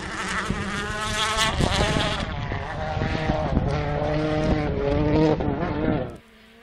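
Hyundai i20 WRC rally car driven hard, its 1.6-litre turbocharged four-cylinder revving up through several quick gear changes. The sound drops away sharply near the end.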